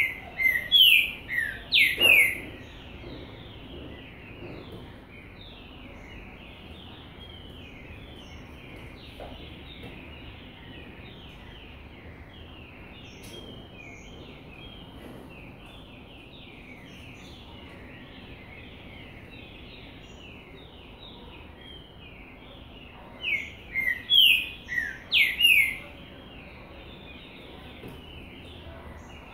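Bird song: a loud phrase of four or five falling whistled notes at the start and again about twenty seconds later, over a constant dense chatter of short chirps from many birds.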